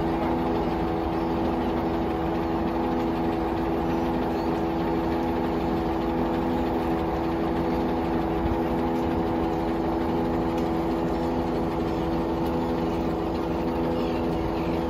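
Diesel engine of a mobile crane idling steadily, an even mechanical drone with a constant pitch.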